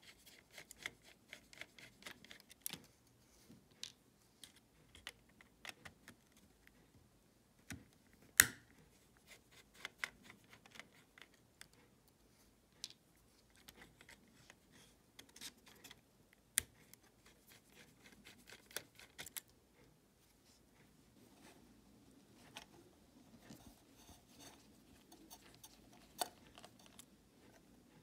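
A small screwdriver turning in tiny screws and handling the small metal and plastic parts of a portable cassette player's mechanism: an irregular scatter of faint clicks and light scrapes, with one sharper click about eight seconds in.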